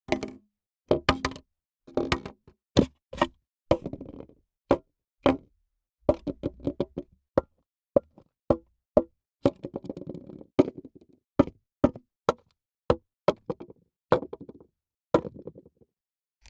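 A string of separate sharp knocks and clinks of hard drink containers being struck or set down, about one or two a second, with some quick clusters and a short ring after a few.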